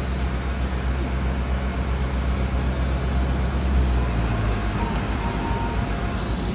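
Steady low machinery drone on an airport apron, from the parked airliner and its ground equipment. The low hum turns rougher and uneven about four and a half seconds in.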